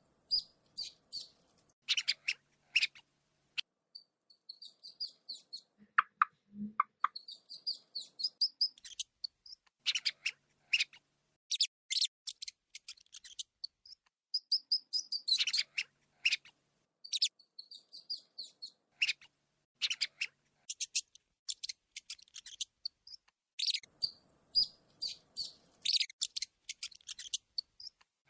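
Rats squeaking: quick runs of short, very high-pitched squeaks, broken by brief pauses.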